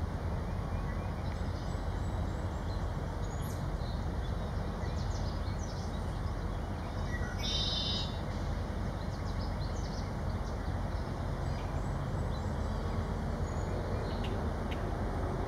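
Outdoor ambience: a steady low rumble with scattered faint, short bird chirps, and one louder, brief bird call about seven and a half seconds in.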